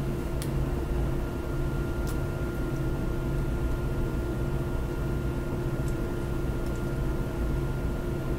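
Steady room noise: a constant low hum with a faint whine over it and hiss, with a few faint ticks.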